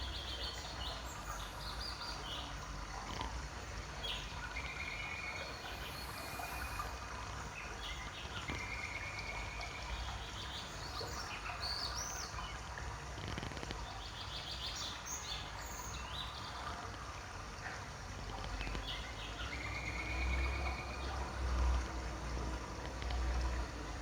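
Small birds chirping and trilling in short, scattered calls over a steady background hiss, with a low rumble that swells in the last few seconds.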